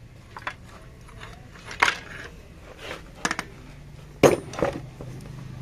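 Scattered metal clinks and knocks from a removed turbocharger and its steel oil and coolant pipes being handled against the engine, the loudest about two and four seconds in, over a faint steady low hum.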